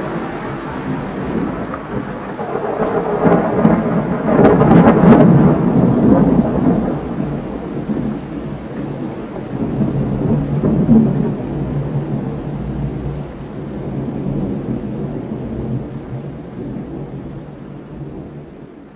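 Thunder from a lightning strike over the ocean, a long rolling rumble that builds to its loudest about four to six seconds in, swells again around eleven seconds, then dies away.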